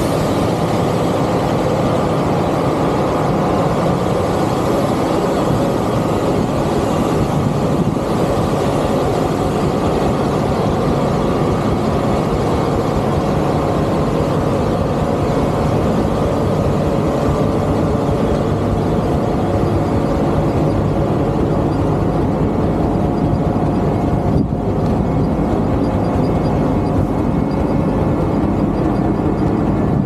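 Claas Lexion 8800 combine harvester running steadily while harvesting corn: a loud, unbroken drone of engine and threshing machinery, with the unloading auger running at first.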